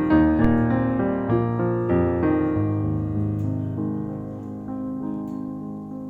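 Background piano music: a gentle melody of piano notes that gradually grows quieter.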